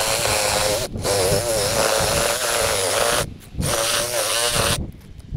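Cordless drill driving a hole saw through asphalt roof shingles and the roof deck. The motor whines under load in three runs, with its pitch wavering as it bites, and briefly stops about a second in and again just after three seconds before the drilling stops near the end.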